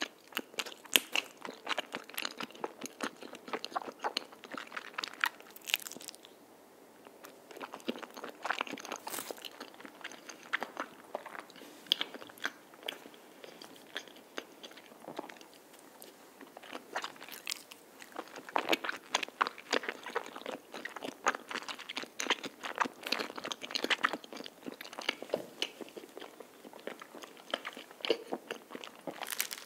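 Close-miked chewing of soft, chewy cream-filled rice cake (tteok): many small clicking mouth sounds, coming in bouts with a few short pauses.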